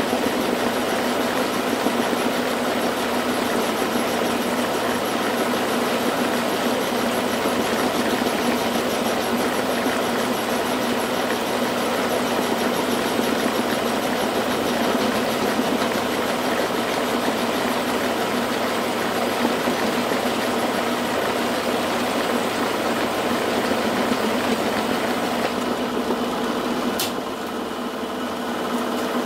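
Milling machine running steadily with an end mill cutting a slot in the workpiece: a constant motor and gear hum with a thin high whine. Near the end there is one sharp click, and after it the sound is a little quieter.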